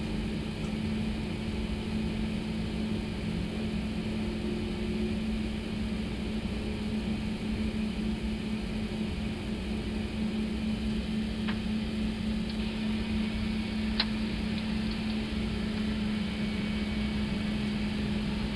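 Steady drone heard on the flight deck of an Airbus A321neo as its engines run up to idle, with engine one completing its start. A faint click comes about eleven seconds in, and a sharper, louder click about fourteen seconds in.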